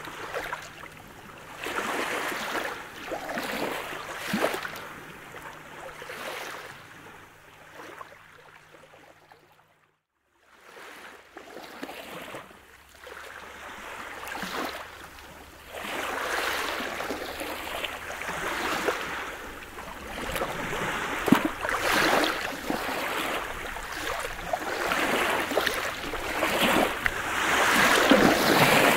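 Small waves breaking and washing up a pebble beach, with many short sharp splashes and clicks in a steady wash. The sound cuts out for a moment about ten seconds in, then returns and grows louder and busier in the second half.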